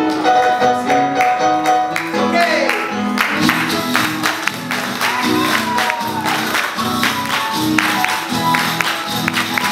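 Live cueca music from a small band with acoustic guitar and keyboard. It opens with plucked notes, then about two seconds in a full driving rhythm comes in with sharp percussive beats and a voice singing.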